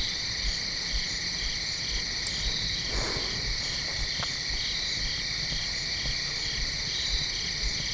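Late-summer insect chorus of crickets and katydids: a steady shrill ringing, with a chirp repeating about twice a second.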